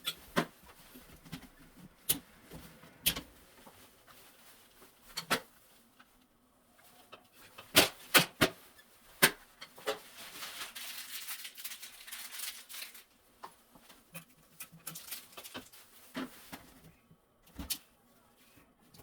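Irregular sharp clicks and light knocks, a few close together about eight seconds in, with a stretch of hiss a little later.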